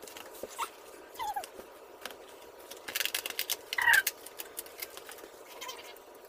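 3D puzzle board sheets being handled and shuffled, with light rustles and taps and a louder rustle of card about three to four seconds in. Short squeaky chirps are mixed in, the loudest during that rustle.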